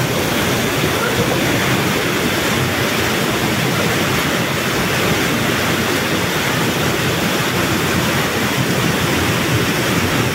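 Muddy floodwater rushing past in a steady, loud torrent.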